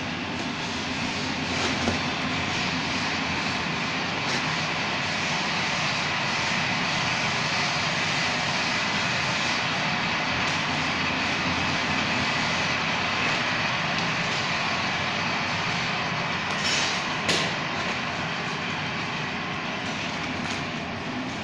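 Steady roar of a gas-fired glory hole furnace burning, with a sharp click about seventeen seconds in.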